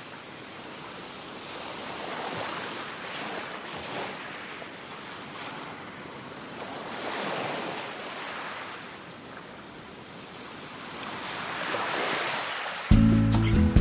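Small waves breaking and washing up on a sandy beach, the surf swelling and falling back about every five seconds. Music comes in suddenly near the end.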